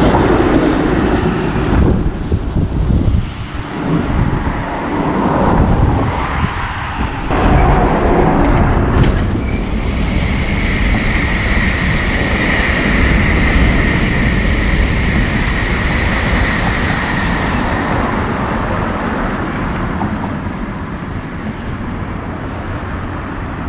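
A train crossing a railway bridge overhead, a loud steady rumble with a high whine held for several seconds in the middle, easing slightly near the end.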